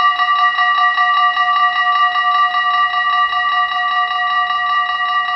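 Level-crossing warning bells of a Dutch automatic half-barrier crossing ringing loud and fast, a steady rapid clanging of several strikes a second, while the barriers lower: the crossing's warning that a train is approaching.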